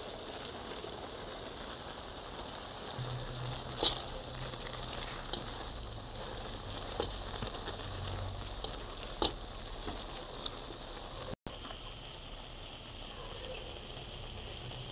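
Pancit bato noodles and vegetables sizzling in a pan as they are stir-fried and tossed, with a few light clicks of the utensil against the pan.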